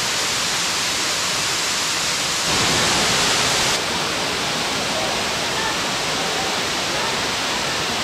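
Tiered waterfall: water falling over rock steps in a steady rush. About two and a half seconds in it grows louder and fuller for just over a second, then drops back suddenly.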